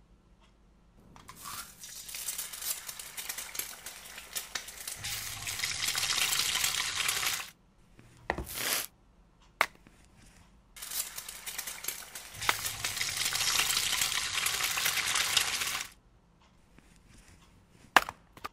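Two long stretches of dense crackling, sizzle-like noise, each growing louder before it stops abruptly. Between them come a short burst and a single click, and near the end two sharp snaps.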